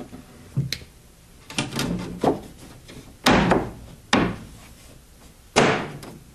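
Tongue-and-groove knotty pine boards knocked and pushed into place against the stud wall: a string of wooden knocks with a little scraping between them, the three loudest falling in the second half.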